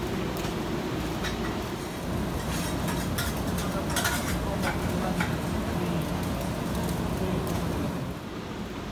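Busy restaurant kitchen: a steady hum of kitchen equipment with food sizzling on the grill and metal utensils clinking a few times around the middle.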